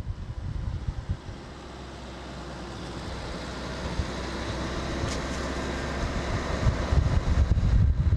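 Car driving along a road, heard from inside the car: a steady low engine and road rumble that slowly grows louder, with gusty wind on the microphone over about the last second.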